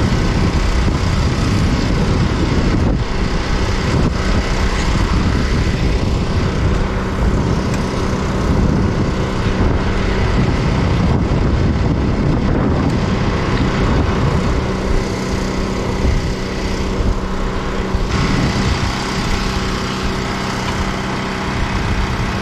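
An engine running steadily at a constant speed, with an even hum throughout.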